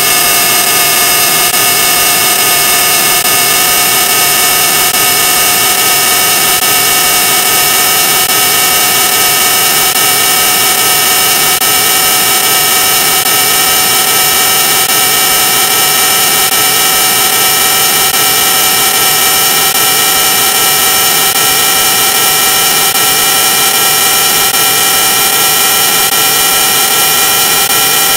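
Loud, heavily distorted electronic audio: a dense, steady hiss-like noise with many held tones stacked on top, barely changing throughout.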